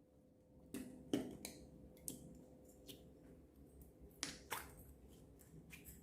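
Slime being squeezed and worked by hand, giving a string of sharp wet pops and clicks. The loudest come about a second in and again past four seconds.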